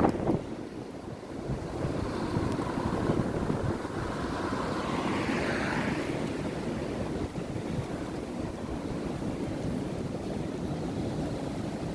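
Strong wind rushing and buffeting the microphone in uneven gusts, with a deep rumble.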